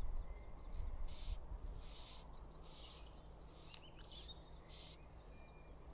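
Small birds chirping and singing in short rising and falling calls, over a low rumble of wind on the microphone that is strongest in the first second. Short bursts of hiss come and go every second or so.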